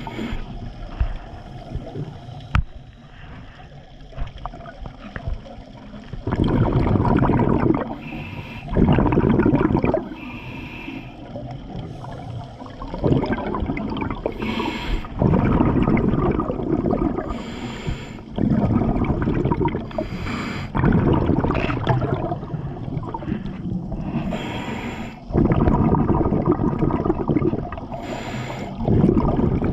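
Scuba diver breathing through a regulator, heard underwater: a short hiss on each inhalation, then a louder bubbling rush as the exhaled air leaves the regulator, repeating every few seconds.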